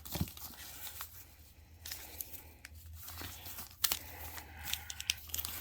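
Crinkling and rustling of wrapping, with light knocks and clicks, as firework canister shells are handled and set down in a row. A sharper click comes about four seconds in, and several small clicks near the end.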